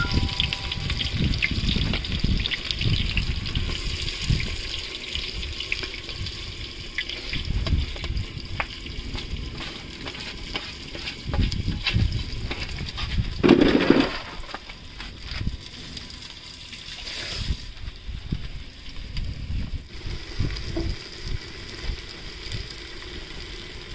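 Wet food being handled and stirred in a cooking pot: irregular sloshing and knocking over a faint steady hiss, with a louder scrape or clatter about fourteen seconds in.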